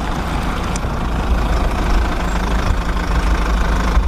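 A heavy engine idling steadily with a low, even rumble.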